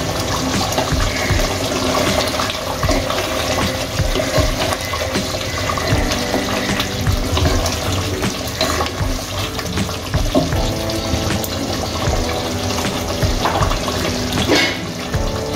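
Thick beef curry bubbling and spluttering in a nonstick pot while a wooden spatula stirs it, over steady background music.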